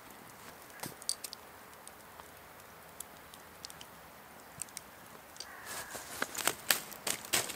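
Quiet outdoor background with a few faint ticks, then, from a little over five seconds in, a quick run of sharp crackling clicks, about three a second, growing louder.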